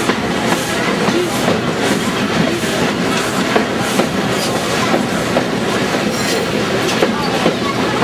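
Steam locomotive running toward the listener: a steady rail clatter with a regular beat about twice a second.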